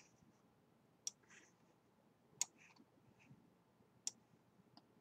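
Computer mouse clicking while placing the points of sketch lines: three sharp clicks about a second and a half apart, with a few fainter ticks between, over near-silent room tone.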